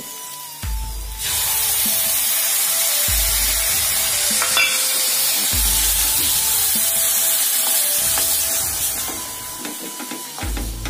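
Okra masala sizzling loudly in a hot pan as the curd goes in and is stirred; the sizzle rises sharply about a second in and eases near the end.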